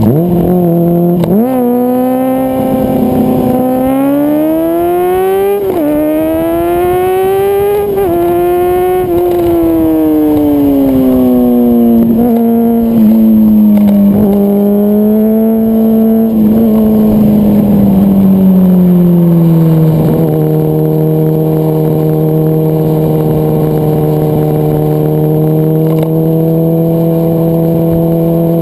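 Motorcycle engine heard close up while riding. In the first ten seconds it accelerates hard, its pitch climbing and then dropping sharply at each upshift. It then eases off with a slowly falling pitch and settles into a steady cruise about twenty seconds in.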